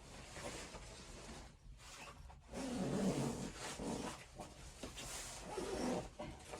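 A dog making low vocal sounds in two bouts, the first about two and a half seconds in and a shorter one near the end.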